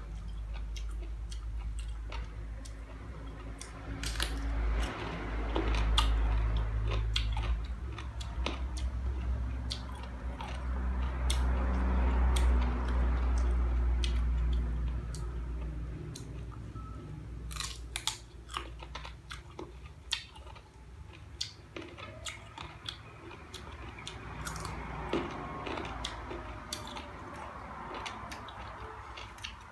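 Close-up crunching bites and chewing of crisp unripe green mango slices, many sharp crackling crunches over a wet chewing sound. A low rumble runs under the first half and fades out about halfway through.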